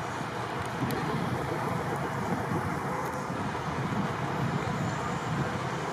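Steady road traffic noise, a continuous wash of passing vehicles.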